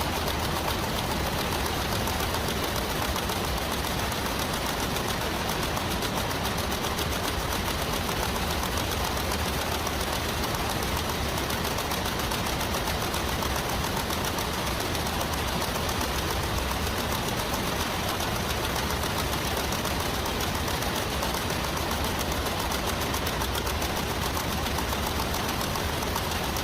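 Nail-factory machinery running continuously with a steady, rapid mechanical clatter.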